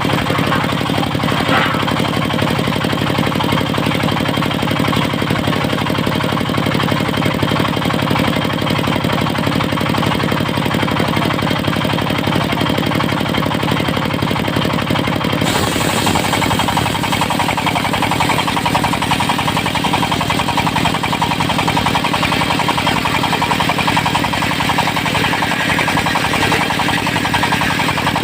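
Diesel engine of a circular-saw sawmill running steadily with a knocking beat; about halfway through the engine note changes and a high, rasping sawing noise joins it, as the blade bites into teak.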